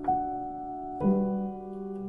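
Slow, soft background music: a note or chord is struck at the start and another about a second in, each left to ring and fade.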